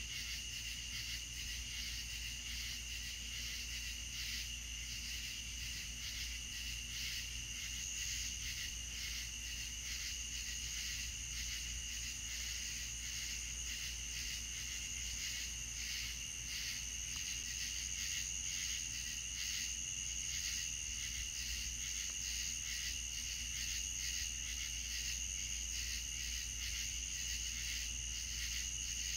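Night chorus of crickets trilling steadily at two high pitches with a fast pulsing texture. The higher trill grows a little stronger about halfway through.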